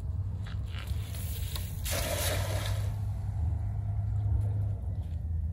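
A weighted cast net landing on the water about two seconds in, a brief spattering splash under a second long, over a steady low rumble.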